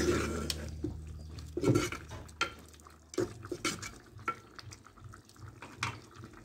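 Wooden spoon stirring in a clay cooking pot, with several separate knocks and clinks as it strikes the pot's rim and sides. Background music fades out in the first two seconds.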